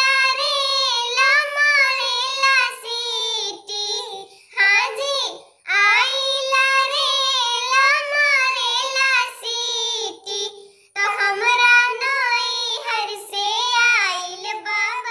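A high-pitched voice singing a jhumar folk song in long phrases separated by short breaks, with little or no instrumental accompaniment.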